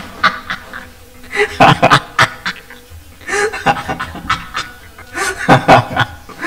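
A man laughing hard, in several loud breathy bursts with quieter stretches between them.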